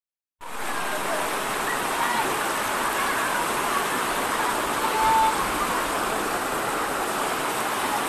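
Rushing stream water pouring and splashing over rocks, a steady rush that starts abruptly about half a second in, with faint children's voices in it.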